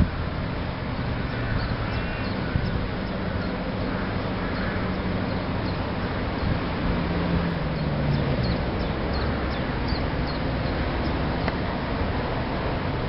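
Steady outdoor rumble and hiss with a low drone that slides down in pitch about eight seconds in, and faint short bird calls now and then, mostly around the middle.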